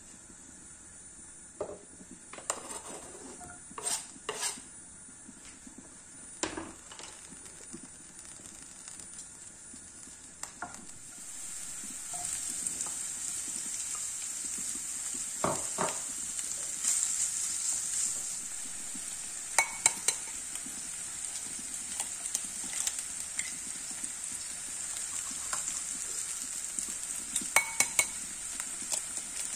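Diced onion and pancetta frying in olive oil in a nonstick pan, stirred with a wooden spatula. The sizzle gets clearly louder partway through, and the spatula knocks sharply against the pan now and then.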